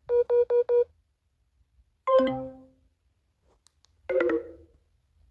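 Three different mobile phone low-battery alert tones, one after another: first four quick identical beeps, then about two seconds in a chime of falling notes that rings out, then about four seconds in a short chord-like chime.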